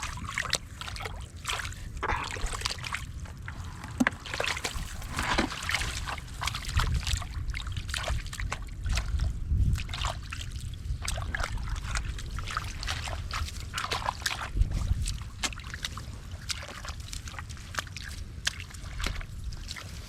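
Shallow muddy water sloshing and splashing irregularly as hands dig and grope for fish, over a low rumble.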